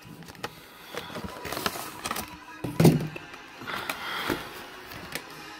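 Action-figure packaging being handled: a plastic blister tray and cardboard box crinkling and rustling, with scattered clicks and one sharp knock about three seconds in.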